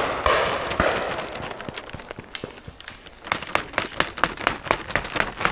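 Shotgun shots rolling and fading away across the valley in the first second or so. From about halfway through, a quick run of sharp clicks, roughly seven a second, from a beater tapping a stick through the cover to flush the birds.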